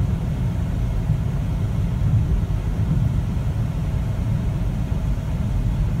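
Steady low rumble of a car cruising on a highway, heard from inside the cabin: road and engine noise.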